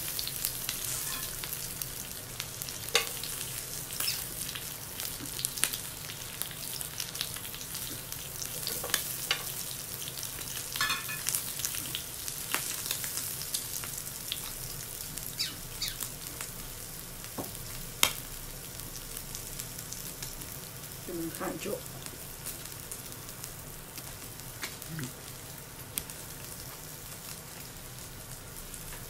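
Meat sizzling on a tabletop yakiniku grill plate: a steady frying hiss, with scattered sharp clicks over it.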